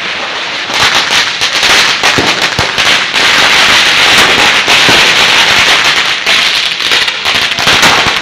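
Firecrackers going off in a rapid, dense crackle of many sharp pops running together. It thickens about a second in and is loudest through the middle.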